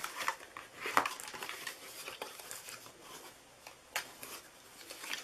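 Bone folder rubbing along the folds of cardstock to sharpen the creases: soft scraping and paper rustling, with a few sharp clicks, the clearest about a second in and about four seconds in.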